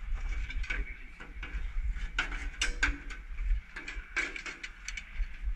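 Irregular clicks and knocks of metal snake tongs and a hook striking a truck's battery box and its plastic cover, over a low steady rumble.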